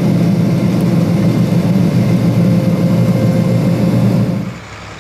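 Combine harvester running steadily with a low, even drone, heard from inside the cab while it unloads beans into a wagon; the sound drops off abruptly about four and a half seconds in.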